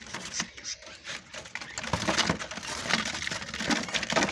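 Many caged birds calling at once, a busy mix of short overlapping chirps and calls, with some cooing.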